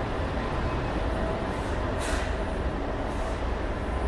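Steady low rumble of the underground station, with a BART train standing at the platform, with a few short hisses at intervals.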